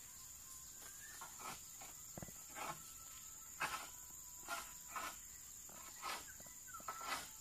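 Steady high-pitched insect chirring, faint, with short soft rustling or knocking noises coming irregularly every half second to a second.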